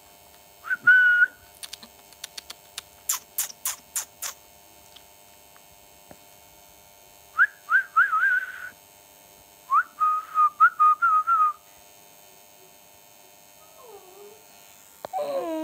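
A person whistling short, rising notes to call a puppy. There is one whistle about a second in, then a quick run of sharp clicks, then two bursts of several quick whistled chirps. A lower, wavering sound starts just before the end.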